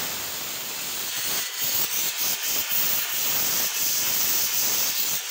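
Pressure cooker whistling: steam jets out of its weight valve in one loud, steady hiss, the sign that the cooker has built up full pressure.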